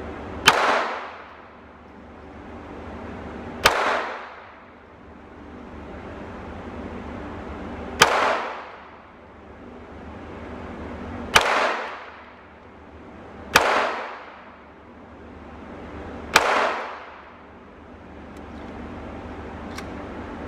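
Six pistol shots at an uneven pace, two to four seconds apart, each a sharp crack with a short ringing tail.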